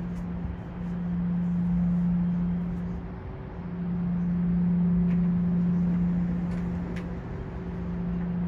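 City street ambience at night: a steady low hum that swells and fades over a background wash of traffic-like noise, with a second, higher hum joining partway through.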